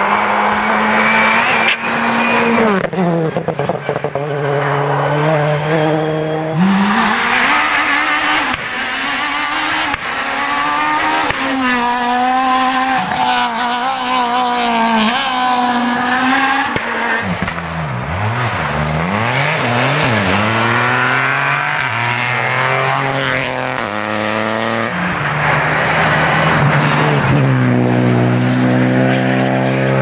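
Rally cars driving a tarmac special stage at racing speed, one after another. The engines rev hard and drop in pitch again and again through gear changes and braking for corners.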